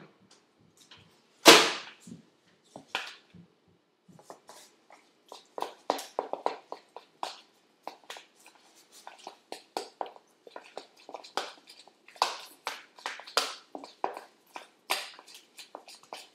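Irregular clicks and knocks of kitchen utensils and dishes being handled, with one louder knock about a second and a half in, then a busier run of clatter.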